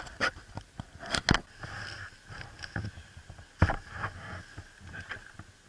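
Scattered sharp knocks and clicks. The loudest come about a second in (two close together) and again a little past three and a half seconds.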